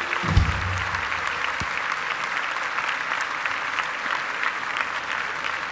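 A large audience applauding, steady dense clapping. A short low thump sounds about half a second in, the loudest moment.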